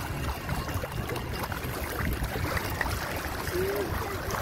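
Sea water lapping and sloshing against a rocky seawall edge, with small splashes from fish at the surface and a low rumble beneath.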